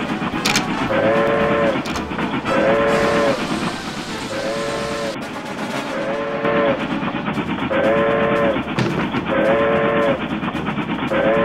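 Steam locomotive whistle blowing a run of short two-note blasts, about eight of them, over the steady running noise of the train.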